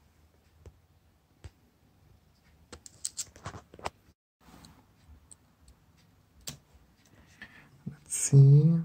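Sparse light clicks and taps from hands handling cut nerve-plant leaves and the plant pot on a wooden table, with a small cluster of clicks about three seconds in.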